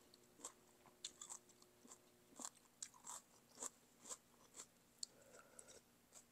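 Faint, close-miked eating sounds: wet chewing with irregular lip smacks and mouth clicks, about two a second, from someone eating beef noodle soup.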